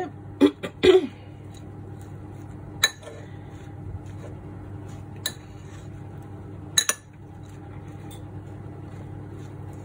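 A metal fork stirring chopped plantain and vegetables in a bowl, clinking sharply against the bowl now and then: twice close together near the start, then a few single clinks a couple of seconds apart, over a steady low hum.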